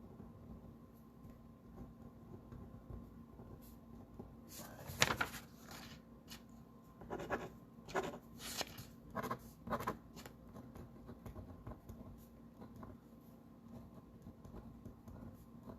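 Pen writing on paper: a run of short strokes in the middle, faint against room tone.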